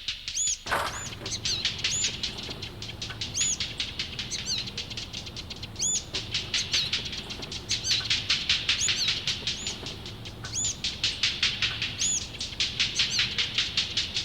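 Bird-attack sound effects: fast, continuous wing flapping overlaid with high screeching bird calls that repeat every second or two, starting about half a second in.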